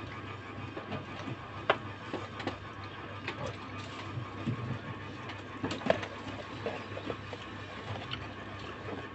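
Table sounds of eating: scattered light clicks and taps of a plastic spoon in a small cup and of hands at a cardboard chicken bucket, over a steady low hum.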